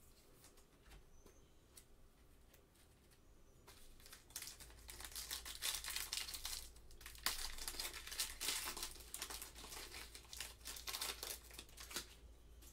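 A trading-card pack's wrapper being torn open and crinkled by hand: a few faint handling clicks, then from about four seconds in a dense, crackling rustle that eases off near the end.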